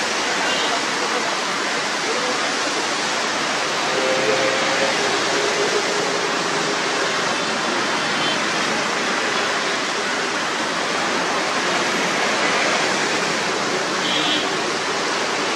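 Road traffic on a rain-soaked road, heard as a steady hiss of tyres on wet asphalt under the running of buses, auto rickshaws and cars. A brief high tone comes near the end.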